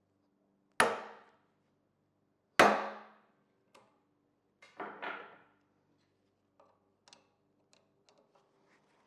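Hammer striking a hand punch to drive a pin out of a cast-iron bench vise part. There are two sharp, ringing metal blows about two seconds apart, then two lighter strikes close together about five seconds in, followed by faint small clicks of tools.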